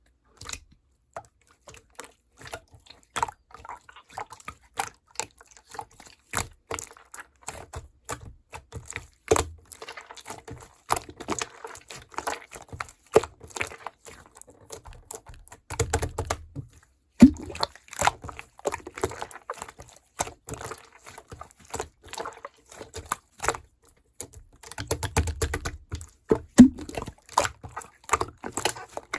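Kitchen work on milk pudding: utensils clicking and tapping against containers, with liquid sounds of milk being handled. Heavier low knocks come about 16 and 25 seconds in.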